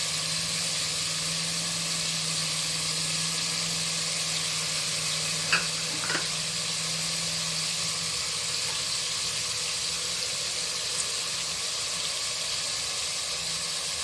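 Chicken pieces sizzling in hot oil in a kadai, a steady hiss, with a couple of light clicks about five and a half and six seconds in. A low steady hum runs through the first half and stops about halfway.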